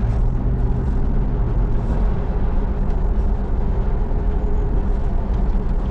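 Steady low rumble of a car driving along a road, heard inside the cabin: engine hum and tyre noise at a constant cruising speed.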